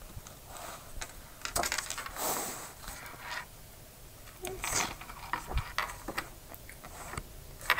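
Hardcover picture book being opened and its pages turned: paper swishing with a few light taps and clicks.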